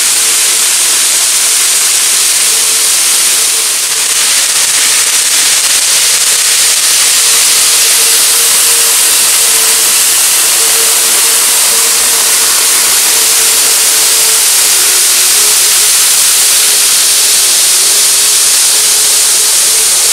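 Running noise of an N-gauge KATO E4 series Shinkansen model train on the layout track: a loud steady hiss with a faint humming tone from the motor.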